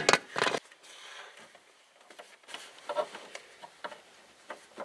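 Sharp plastic snap right at the start, then a scatter of small clicks and scraping as plastic door-panel trim and anchor clips are pried out and handled.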